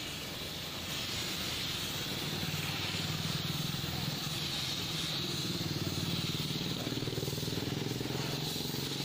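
Compressed-air paint spray gun hissing steadily as it lays the final clear coat on a car fender, with a steady low motor hum underneath.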